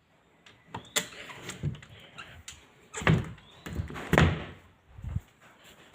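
A series of knocks and thumps, like a door or panel being moved and shut, the heaviest about three and four seconds in.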